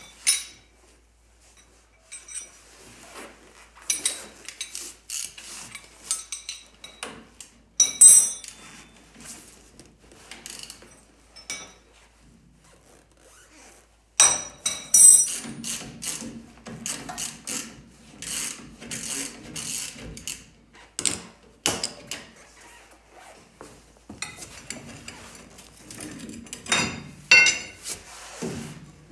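Hand tools at work on a truck's front suspension: irregular metallic clanks, clicks and knocks of a ratchet and wrenches on the bolts, with a few short ringing metal strikes. The work grows busier about halfway through.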